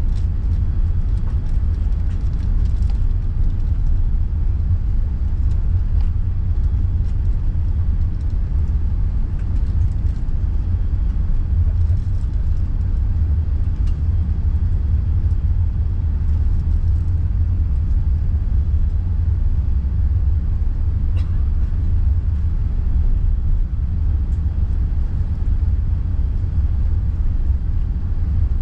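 Steady deep rumble of an Airbus A380's engines and airframe heard inside the passenger cabin, with a few faint clicks over it.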